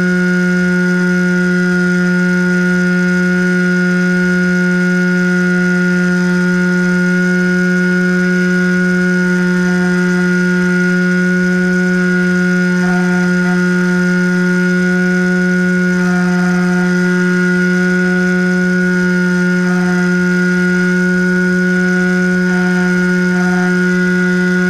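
RC plane's motor and propeller running at steady throttle in flight, heard from the onboard camera as a constant drone at one pitch.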